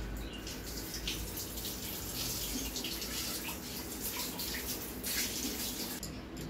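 Water running from a kitchen tap onto goat intestine being rinsed by hand in a sink, a steady splashing hiss that stops near the end.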